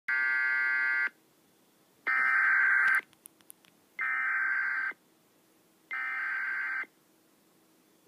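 Emergency Alert System SAME header: digital data tones sent as four bursts about a second long, about a second apart. The header encodes a National Weather Service flash flood watch.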